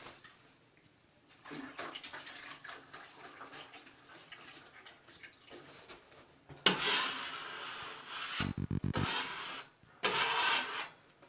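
Water splashing and running in bursts, the loudest starting about seven seconds in and a shorter one near the end, with quieter rubbing earlier.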